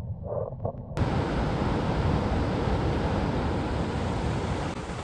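Steady rushing of a river through a canyon, cutting in abruptly about a second in after a duller, muffled rumble.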